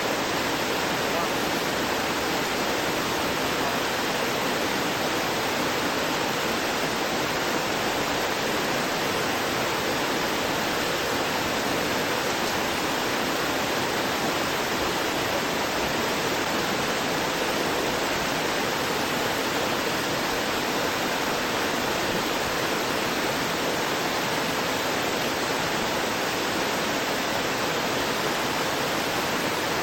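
Rocky waterfall rushing down over a cliff, water crashing and splashing in a steady, unbroken roar with no changes.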